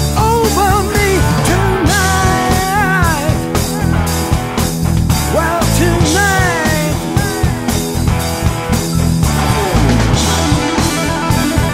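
Rock music from a guitar, bass and drums band: a steady drum beat and bass line under a melodic line that bends up and down in pitch.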